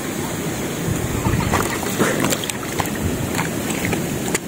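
Water sloshing and swirling close to the microphone as the spearfisher moves through the water, with a few faint clicks.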